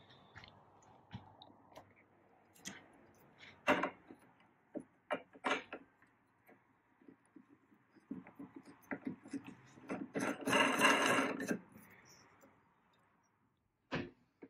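Scattered clicks, knocks and metal clatter from a drum sander's parts being handled and adjusted, with a denser clattering stretch of about two seconds around ten seconds in and a single knock near the end.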